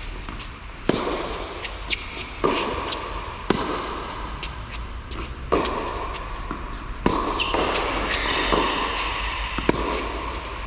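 Tennis balls being hit with rackets and bouncing on an indoor court: sharp hits come about every second or so and echo in the large hall. Shoes shuffle on the court surface between the hits.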